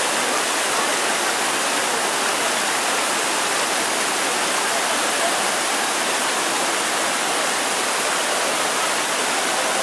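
Fast, shallow mountain river rushing over boulders and small cascades, a steady loud wash of white water.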